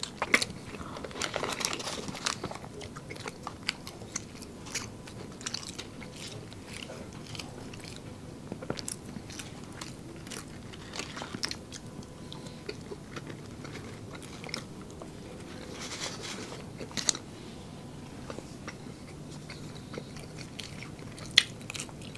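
Two people biting into and chewing fast food close to the microphone, a burger and french fries, with scattered short, sharp crunches.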